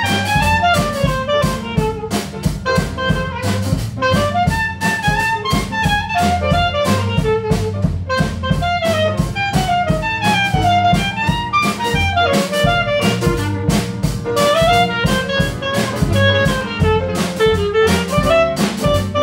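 Live trad jazz band: a clarinet solos in quick running lines over piano, upright bass and drums keeping a steady swing beat.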